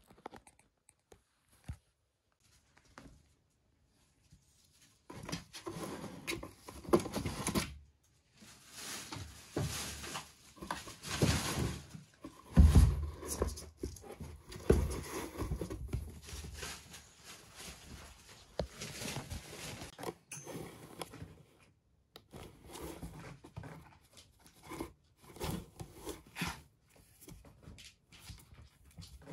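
A kitten scrabbling in and around a cardboard box, its paws and body scratching and rustling against the cardboard in irregular bursts that start about five seconds in.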